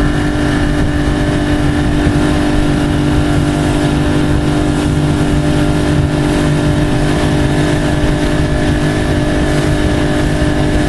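Ski boat's engine running at a steady speed under way, a constant drone with a rush of wind and water.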